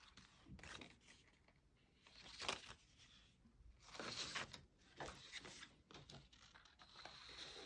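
Faint rustling and sliding of a long paper strip handled by hand, in several short scrapes a second or so apart.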